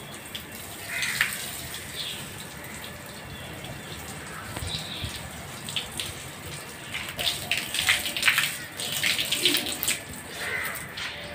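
Water splashing as a stream of water lands on leafy balcony plants, in uneven bursts that are heaviest about two-thirds of the way through.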